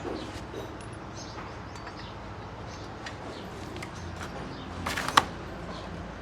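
Scattered light clicks and knocks of metal parts and tools being handled, with a sharp metallic clank about five seconds in.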